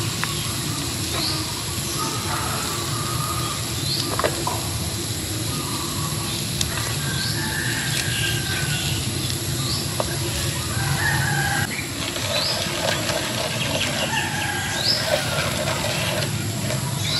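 Birds calling over a steady background hiss: a short rising chirp repeated every couple of seconds, and longer drawn-out calls joining in the second half. There are a few light clicks of a spoon against the coconut-shell bowl.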